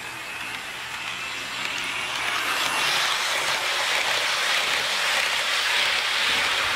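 HO scale model train running on the track: a steady hiss of wheels and motor that grows louder over the first few seconds and then holds.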